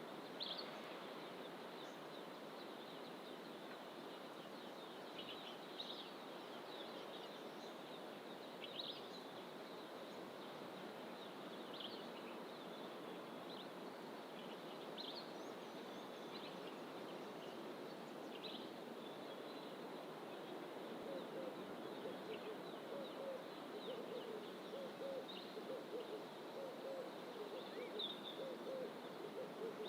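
Wild birds calling in dense fynbos bush, with short high chirps every few seconds. About two-thirds of the way through, a low, repeated cooing call joins in. A steady rushing hiss runs underneath.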